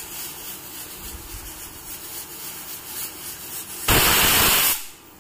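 Pressure cooker whistle blowing off steam in one short, very loud hiss lasting under a second, about four seconds in, then cutting off sharply. It is the cooker reaching pressure, the second of the two whistles counted to cook the spinach.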